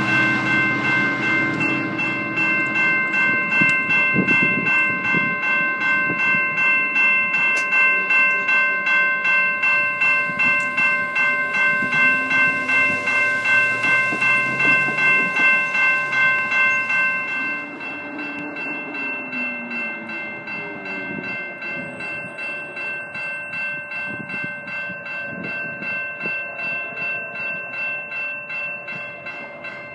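A train rolling past with a rumble and a clickety-clack of wheels over rail joints, under a railroad grade-crossing warning bell that rings steadily in a regular beat. The train noise drops off about two-thirds of the way through while the bell keeps ringing.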